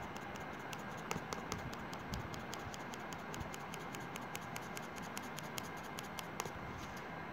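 Colour pencil scratching on paper in quick, even strokes, about five a second, as a drawing is shaded in.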